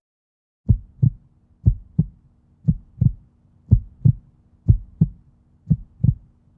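Heartbeat sound in the soundtrack: paired low thumps, lub-dub, about one pair a second, starting just under a second in over a faint steady low drone.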